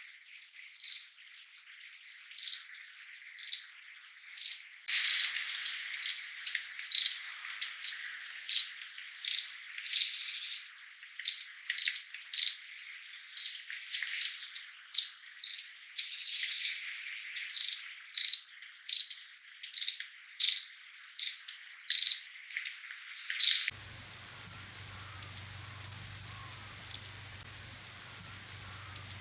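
Long-tailed tits giving their call notes: many short, high, clipped calls in quick succession. About 24 seconds in the recording changes, and thin, very high notes come in short runs.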